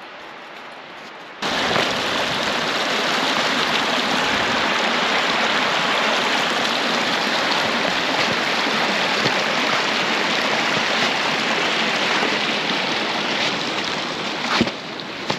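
Rushing water of a rain-swollen, snowmelt-fed mountain brook, a steady loud rush that comes in suddenly about a second and a half in over a quieter hiss.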